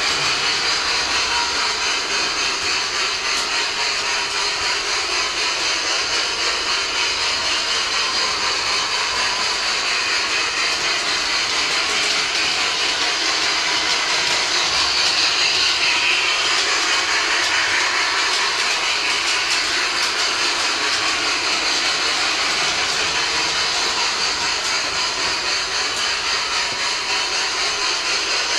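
Bachmann large-scale model steam locomotive and its cars running around the track: a steady whirring running noise of motor, gears and wheels on the rails, pulsing slightly and evenly.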